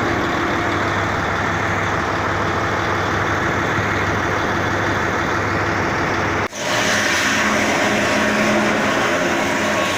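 Heavy truck diesel engine idling steadily. About six and a half seconds in, the sound cuts out for an instant and resumes brighter, with a different tone.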